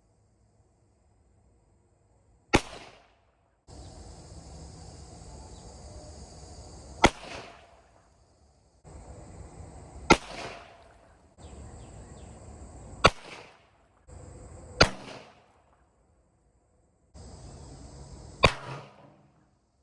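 Six single revolver shots from a Rock Island Armory Model 200 .38 Special firing 158-grain full metal jacket rounds, spaced two to five seconds apart, each followed by a short echo, with a steady hiss between most of them.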